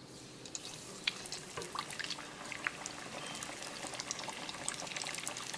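Gram-flour-battered salmon pieces going into hot vegetable oil in a countertop deep fryer. The oil bubbles and crackles with a steady hiss that grows louder as more batter hits the oil.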